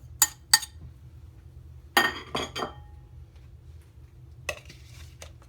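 A metal spoon clinking against a bowl as spices are spooned into a yogurt marinade: two quick taps near the start, a cluster of knocks with a short ring about two seconds in, and another tap near the end.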